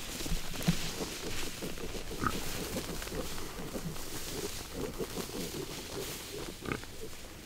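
Wounded wild hog grunting as it runs off, a rough string of low grunts throughout. It has just been hit by an arrow in the shoulder.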